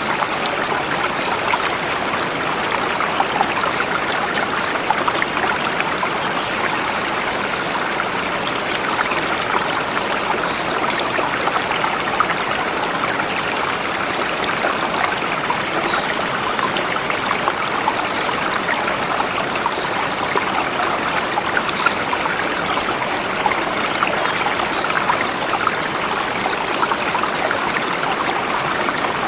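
Forest river flowing swiftly over rocks: a steady rush of water with many small splashes and trickles throughout.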